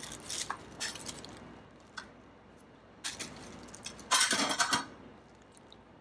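Handling noise from a solar panel with a metal mounting plate being turned over in the hands: light clinks and knocks, then a louder burst of plastic-bag crinkling a little after four seconds in.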